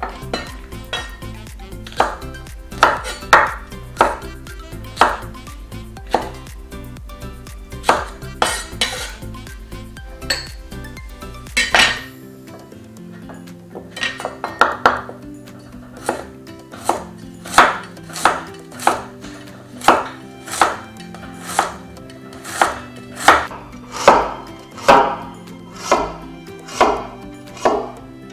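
Chinese cleaver chopping celery and then slicing a carrot on a wooden chopping board: sharp knocks of the blade striking the board, irregular at first, then a steady beat of about three every two seconds in the second half. Soft background music plays underneath.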